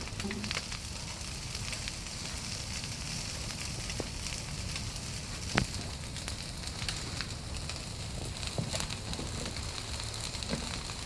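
Open fire burning with a steady rush and scattered crackles and pops, one sharp pop about five and a half seconds in.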